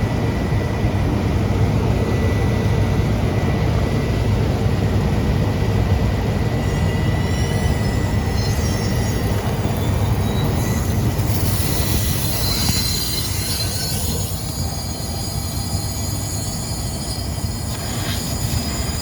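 Pressurized nitrogen from a ProFlush flushing kit rushing out of an air-conditioning system's line as a loud, steady hiss, blowing out the contamination inside. About seven seconds in, thin high whistling tones join it and grow stronger about twelve seconds in.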